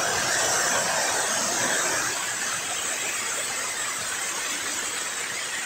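Small river waterfall rushing and splashing steadily over rocks into a foamy pool, a little louder in the first couple of seconds.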